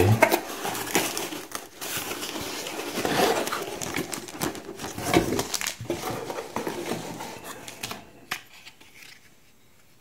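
Cardboard box flaps being handled and white packing wrap crinkling and rustling as a part is unpacked, with scattered clicks; it dies down about eight seconds in.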